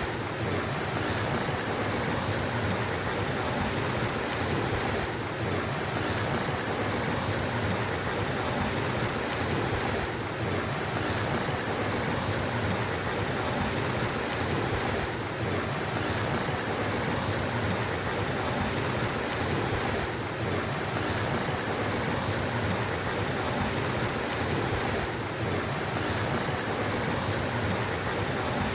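Steady rushing of flowing water, an even hiss, with a slight dip about every five seconds.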